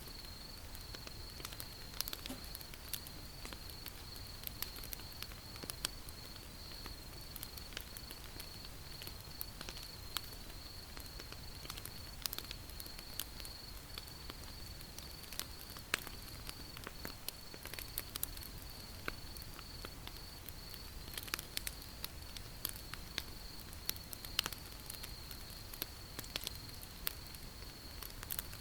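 Wood campfire crackling: irregular sharp pops and snaps of burning wood over a low steady rumble, with a steady high-pitched tone underneath.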